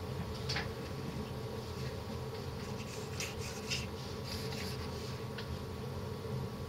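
Wooden Y-stage carriage of a MakerBot Cupcake slid by hand along its steel rods, giving short rubbing and scraping sounds, once about half a second in and several times around the middle. A steady low electrical buzz continues underneath.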